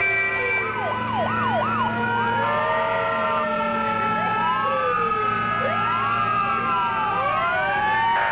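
Several fire truck sirens sounding at once, overlapping wails rising and falling in pitch, with a few quick yelps about a second in, over steady held tones.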